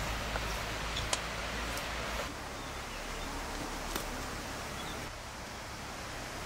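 Steady hissing outdoor background noise with a few light clicks and rustles from food and dishes being handled.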